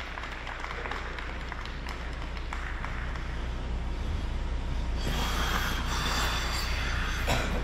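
Scattered applause from a small arena crowd over a steady low hum. A louder stretch of hiss comes in about five seconds in.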